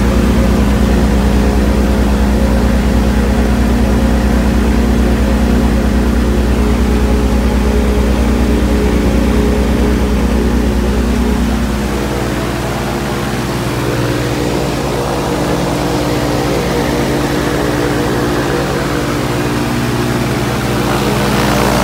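Viking aircraft engine of a Rans S-12 running steadily, a dense drone of several steady tones. A little past halfway the deepest part of the drone drops away and the sound becomes slightly quieter.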